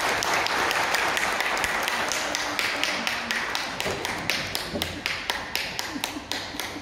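Guests' applause dying down: it thins out into scattered, separate handclaps that grow sparser and fainter.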